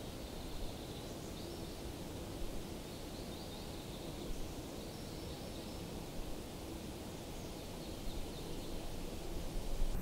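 Steady outdoor nature ambience: a soft, even hiss with faint high chirps now and then.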